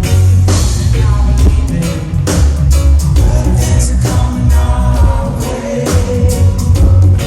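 Live reggae band playing: a heavy bass line and drum kit under a sung vocal melody and guitar.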